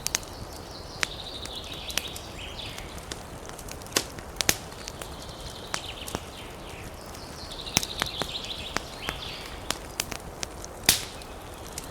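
Wood fire crackling: irregular sharp pops and snaps over a steady hiss. A high rasping trill comes and goes every few seconds over it.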